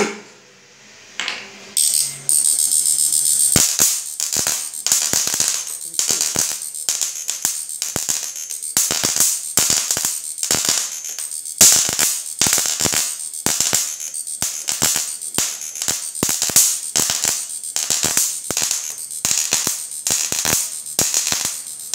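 High-voltage arc from an electric fishing inverter's output lead struck against a metal plate: a loud, fast, irregular crackle of sparking snaps that starts about two seconds in and keeps on.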